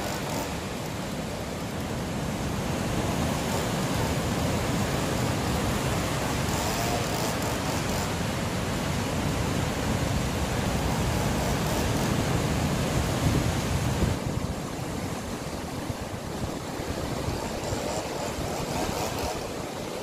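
Heavy sea surf breaking and churning over boulders and a pebble shore: a constant rush of foaming water that swells and eases, loudest about two-thirds of the way through before it drops back.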